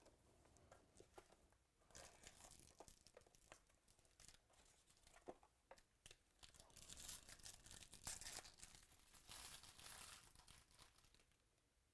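Foil wrapper of a Bowman Chrome baseball card pack being torn open and crinkled, faint, loudest about seven to ten seconds in. Light clicks and rustles of the cards and box being handled come before it.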